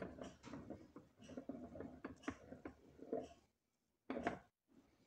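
Small metal clicks, taps and scrapes of hand tools and parts being handled on a homemade ball vise, busy for about three and a half seconds, then a brief pause and a sharper knock about four seconds in.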